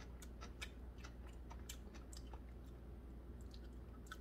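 A person chewing a mouthful of romaine lettuce wrap filled with chicken and shredded-cabbage stir-fry: faint, irregular crunching clicks that thin out after a couple of seconds.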